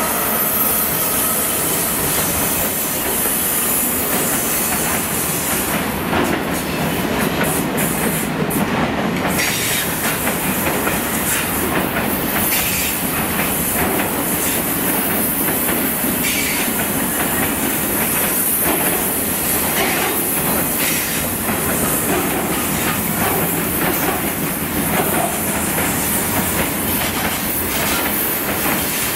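Steel-coil freight wagons behind a Class 66 diesel locomotive rolling past close by at steady speed: a continuous rumble of wheels on rail with clicks over the rail joints.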